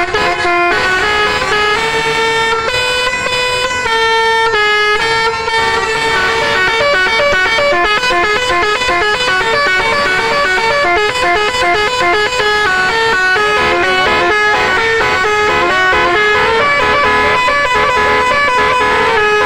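A bus's telolet horn, a set of multi-tone air horns playing a melody. It holds a few longer notes over the first six seconds, then plays fast runs of short, stepping notes, several a second.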